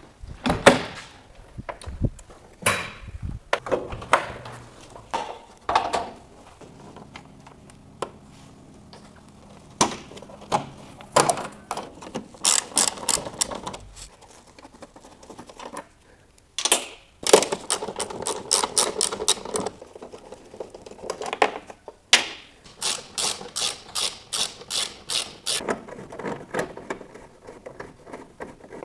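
Hand tools working on a car headlight assembly: runs of quick, even clicking strokes, about three a second, mixed with scattered knocks and clatter of parts.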